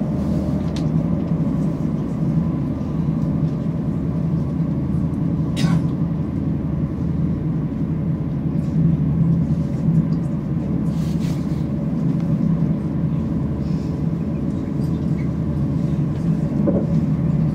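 Steady low rumble of a train in motion, with a few faint clicks.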